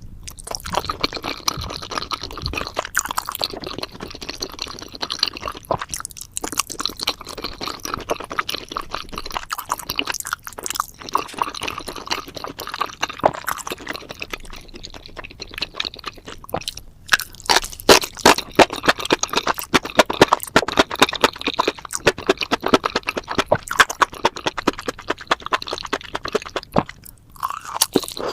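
Close-miked chewing of spicy seafood and mushrooms: a dense run of wet, crunchy mouth sounds, with a short pause near the end.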